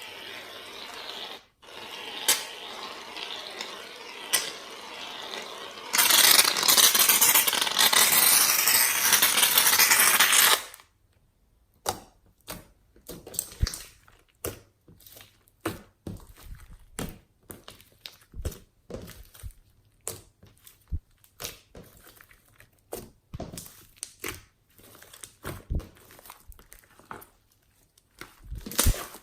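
Slime being handled. First a rushing hiss that turns much louder for about four seconds, then a long irregular run of small sticky clicks and pops as the slime is squeezed and pressed.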